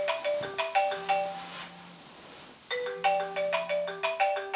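Phone alarm ringing with a marimba ringtone: a quick run of bright mallet notes that breaks off and starts again about three seconds later.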